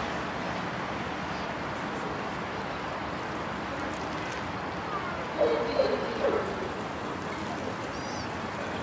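Steady rushing outdoor background noise, with a brief distant voice calling about five and a half seconds in.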